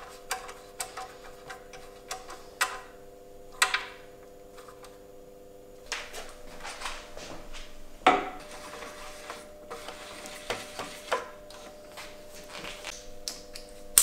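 Workshop handling: a hand tool clicking as it is worked, then a bike frame knocking as it is set into a repair stand and clamped, with the loudest knocks about eight seconds in and at the end. A faint steady hum of several held tones runs underneath.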